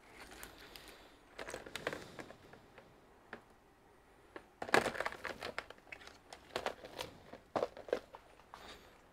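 Tangled test leads with metal alligator clips being handled and lifted out of a plastic tub, giving irregular clicking and rattling. The loudest clatter comes about halfway through.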